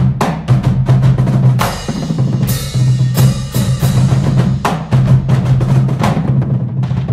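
Marching drumline playing a fast rhythm: marching bass drums struck in quick, dense strokes with a deep booming tone, and cymbals crashing about two seconds in.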